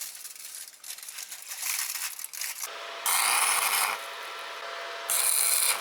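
Aluminium foil crinkling as it is wrapped around a gearbox bearing, then two short bursts of electric arc welding, one of about a second and one a little shorter, with a steady hum between them, as a nut is welded onto the stuck bearing so that it can be pulled out.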